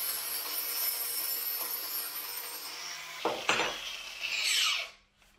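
Steady abrasive grinding as a part is cleaned up with a small tool. It swells into a louder scrape near the end, then stops.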